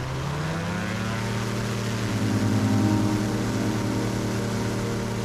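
Rotax four-cylinder engine and propeller of a Sling high-wing light aircraft at full power on the takeoff roll. The pitch rises over about the first second, then holds steady.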